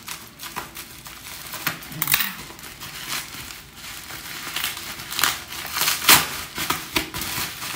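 Plastic bubble wrap crinkling and crackling in irregular bursts as it is cut open and pulled apart by hand.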